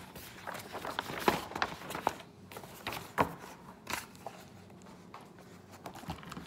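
Scattered light knocks and taps, uneven in time, the loudest a little past one and three seconds in, sparser in the second half.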